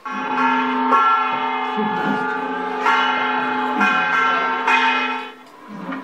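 Soundtrack of a traditional festival recording played back into a lecture room: sustained ringing tones, restruck every second or two, with a dip near the end.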